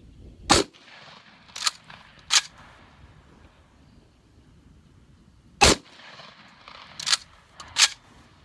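Two 12-gauge shotgun shots from a Vepr 12 firing 00 buckshot, about five seconds apart. After each shot come two sharp metallic clacks about a second apart: the bolt being racked back and let forward by hand.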